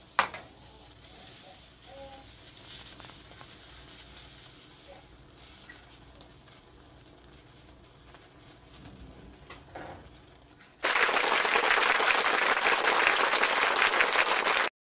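A sharp click, then faint scraping of a metal spoon stirring thick stew in a metal pan. Near the end a loud burst of applause starts suddenly, runs about four seconds and cuts off abruptly.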